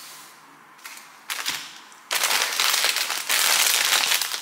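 Grocery packaging crinkling and rustling as it is handled: a brief rustle a little over a second in, then loud, continuous crinkling from about two seconds in.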